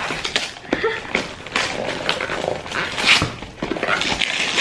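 Christmas wrapping paper being torn and crinkled off a gift box, with a louder rip about three seconds in.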